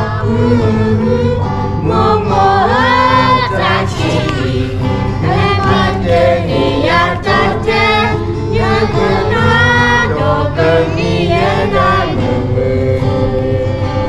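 Group of young children and women singing a song together in chorus.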